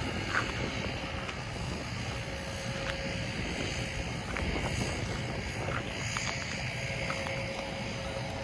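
Norfolk Southern train's cars rolling past: a steady rumble of wheels on rail, with a few brief faint squeaks.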